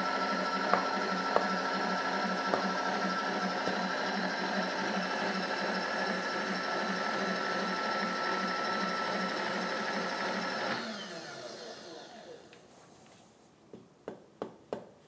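Milling machine table power feed motor whirring steadily as the table traverses, with a few sharp taps of a mallet on the vise in the first few seconds. About eleven seconds in, the feed stops and the motor winds down with a falling pitch, followed by a run of faint, evenly spaced clicks.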